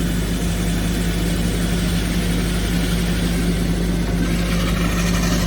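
Excavator's engine running steadily with a constant hum, powering a hydraulic rock core drill as it bores. A higher hissing, scraping sound rises near the end.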